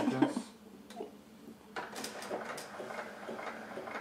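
Keurig coffee maker dispensing hot water. It starts about two seconds in as a steady hiss with faint ticks about three or four times a second.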